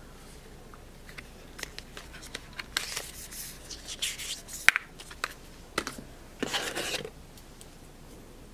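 Hands handling the cardboard and paper packaging inside an iPad Pro box while taking out its accessories: scattered rustling and scraping with small clicks, and one sharp snap about halfway through.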